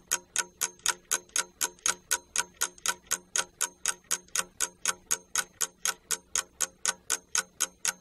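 Ticking clock sound effect: quick, even ticks, about four a second, counting down the time allowed for a task.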